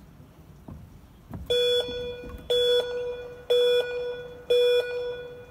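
Start clock's countdown beeps for a track cycling start: short beeps of one steady pitch, one each second, starting about a second and a half in. They count down the final seconds before the rider is released from the start gate.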